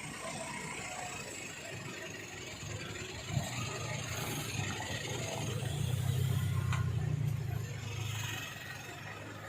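Engine noise in city traffic. A low engine hum swells about a third of the way in, is loudest past the middle, and fades near the end, with a short click as it starts.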